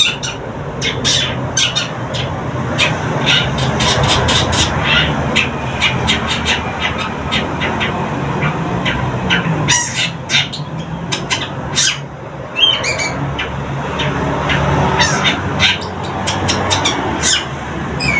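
Young long-tailed shrike (cendet) in its first song, chattering in a quick run of short, harsh scratchy notes, several a second, with a few brief whistled notes about two-thirds of the way through. A steady low hum runs underneath.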